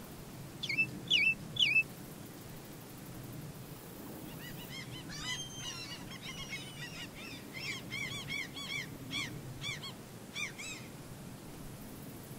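Greater flamingos calling: three loud calls close together about a second in, then, from about four seconds in, a flock calling in a fast run of shorter, quieter calls.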